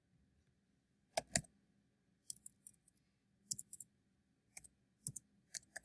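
Scattered small sharp clicks from working a computer: a louder pair about a second in, then small groups of quieter clicks every second or so.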